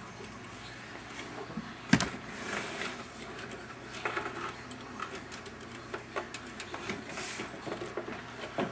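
SATA power connectors being handled and pushed onto a hard drive and an optical drive: scattered plastic clicks and cable rustling, with one sharp click about two seconds in, over a steady low hum.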